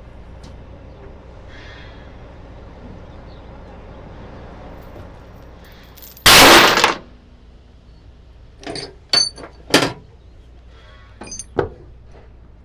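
Steel load chains dropped onto a flatbed trailer deck: one loud rattling crash about six seconds in, then several shorter clanks.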